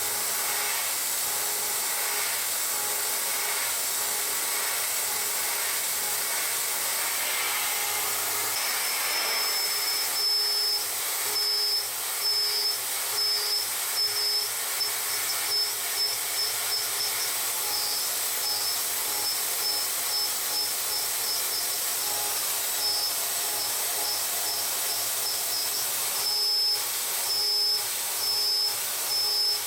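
Tongtai VP-8 vertical machining center running: a steady high hiss over a low machine hum. From about eight seconds in, a high-pitched whine keeps cutting in and out in short pieces.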